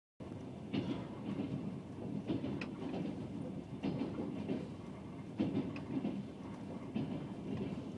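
Rossiya 001M passenger train running along the Trans-Siberian line, heard from inside a carriage: a steady rumble with wheels clacking over rail joints every second or so.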